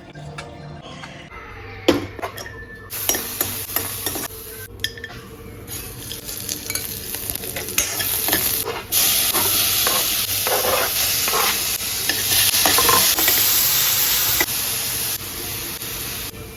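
Food sizzling in a hot pan while being stirred, with a utensil knocking against the pan in the first few seconds. The sizzle grows loud about halfway through and eases near the end.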